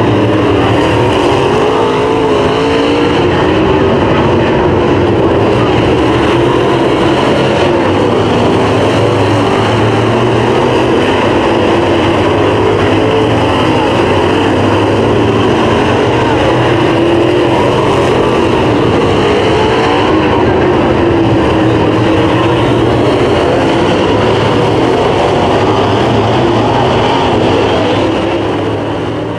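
Several dirt late model race cars' V8 engines running hard around a dirt oval, their engine notes rising and falling as they go around. The sound fades out near the end.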